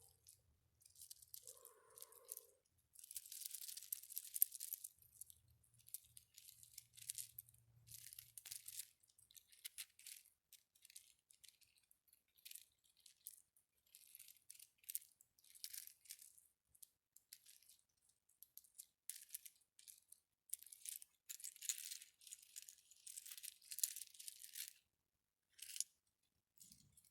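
An ASMR trigger object is handled close to the microphone. It gives many short, irregular crackly bursts, sometimes in quick runs and sometimes with brief pauses between them.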